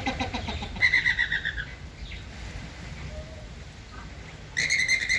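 Flamingo calling: rapid, pulsed calls for the first second and a half or so, a pause, then another loud call breaks in near the end.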